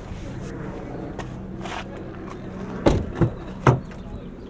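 Rear door of a Toyota Land Cruiser being unlatched and swung open: three sharp clunks in quick succession about three seconds in, over a low steady hum.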